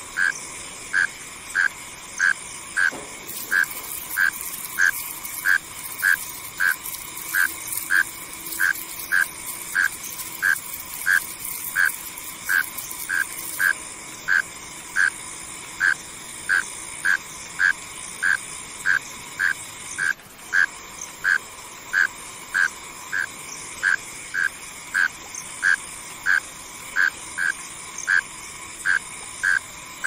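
Mole cricket calling: short, evenly spaced pulses a little under two a second, over a steady background chorus of night insects.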